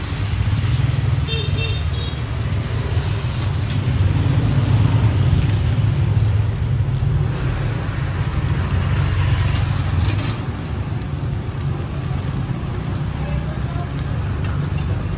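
Bánh xèo batter sizzling and crackling in a row of small pans over fires, a steady hiss over a constant low rumble.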